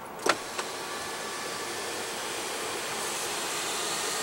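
Electric motor of a panoramic sunroof running steadily as the glass panel slides open, with two sharp clicks just after the start and the hum growing slowly louder.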